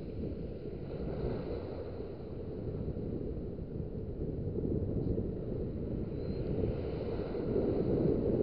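Wind buffeting the microphone in a steady low rumble, over small surf waves washing in the shallows.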